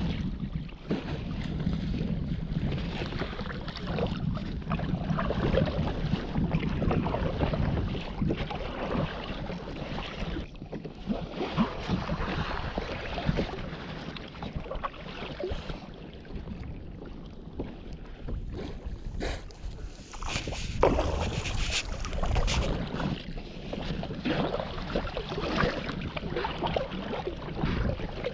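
Sea water splashing and lapping against a kayak's hull as it is paddled, with wind buffeting the microphone.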